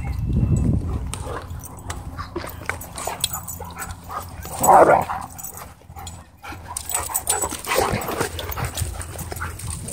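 Dogs, among them a German Shepherd and a German Shorthaired Pointer, wrestling roughly with low growling at the start, one loud bark about five seconds in, and scuffling and more growls near the end.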